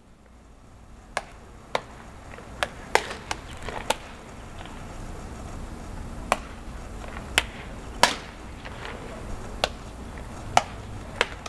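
Baseballs smacking into leather gloves during a game of catch: about a dozen sharp, irregular pops, the loudest about three seconds in and about eight seconds in, over a low steady outdoor background.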